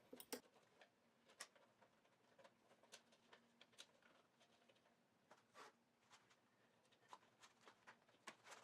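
Near silence: quiet room tone with faint, irregular small clicks and taps.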